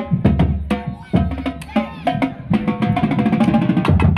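Marching band drumline playing a fast cadence: snare drums, tenor drums and bass drums striking together in a loud, driving rhythm.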